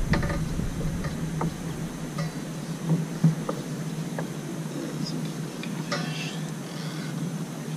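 Baitcasting reel cranked during a lure retrieve: scattered light clicks and ticks, with sharper clicks about three seconds in and again about six seconds in.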